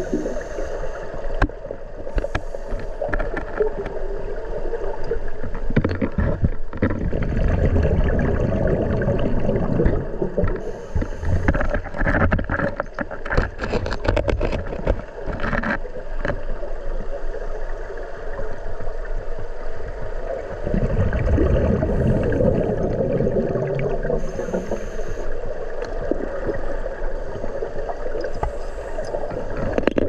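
Rushing river water heard by a camera submerged in a waterfall's plunge pool: a steady, muffled, low rumble with scattered clicks and knocks.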